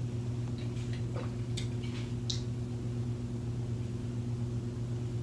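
Steady low hum with a few faint ticks in the first couple of seconds.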